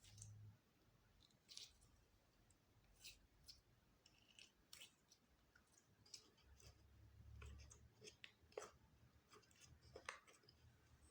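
Faint, irregular sticky clicks and soft crackles of slime being pressed, stretched and mixed by hand.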